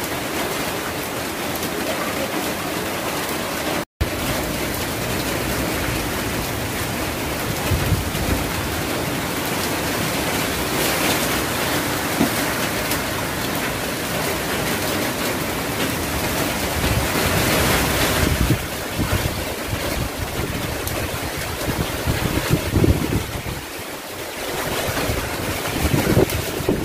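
Typhoon wind and heavy rain: a loud, steady rushing noise that swells with the gusts, with wind buffeting the microphone in rumbling thumps near the end.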